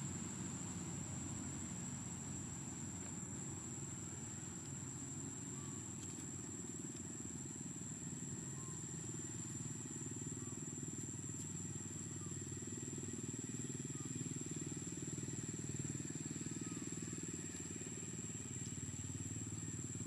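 Outdoor ambience: a steady low rumble and a continuous high-pitched tone, with faint short chirps every second or two.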